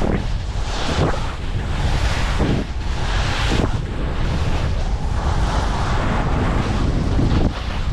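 Heavy wind buffeting the microphone: a loud, steady rushing with low rumble and several brief swishing surges.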